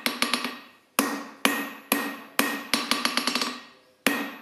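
Hand hammer striking a hot steel bar held in tongs on an anvil, forging it square: about seven heavy blows roughly half a second apart, with quick runs of light taps between. Each strike leaves the anvil ringing.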